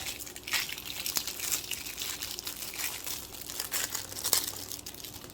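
Packaging crinkling and rustling as an item is handled and unwrapped, with irregular small crackles and taps throughout.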